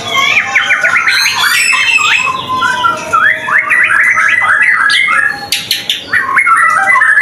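White-rumped shama singing a loud, fast, varied song of whistled phrases, quick pitch slides and trills, nearly without pause.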